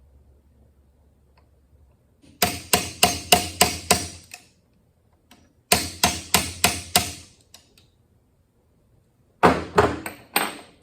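Quick light hammer taps on the steel parts of a manual transmission during reassembly, in three short runs of five to seven strikes each.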